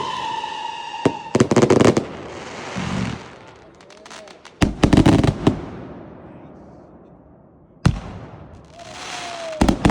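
Consumer fireworks going off: a falling whistle fades out about a second in, then volleys of sharp bangs come in groups, one single bang near the end and another volley at the very end, each followed by a crackling hiss.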